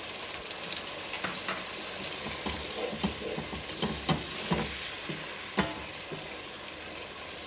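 Chicken and vegetables in tomato pasta sauce sizzling in a frying pan, with a steady hiss, while a wooden spatula stirs them and scrapes and knocks against the pan now and then.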